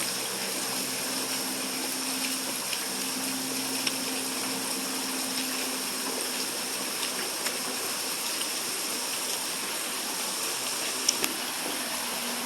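Heavy rain pouring down steadily, with a faint low hum underneath and a couple of sharp ticks about eleven seconds in.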